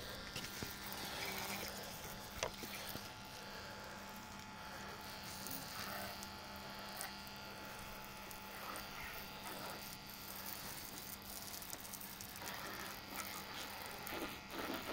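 Electric pressure washer running with a steady hum while its lance sprays water against a motorcycle's bodywork, giving a constant hiss of spray.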